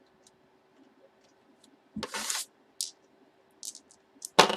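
Handling noises: a brief rustle about two seconds in, a few short scrapes, then a sudden loud knock with a rustle near the end.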